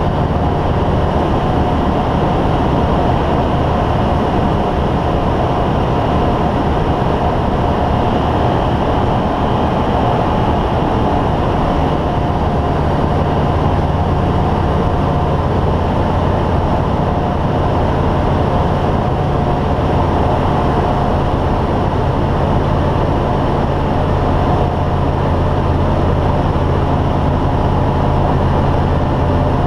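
KhAZ-30 light aircraft's piston engine and propeller running steadily in flight, a loud, even drone heard from inside the cockpit.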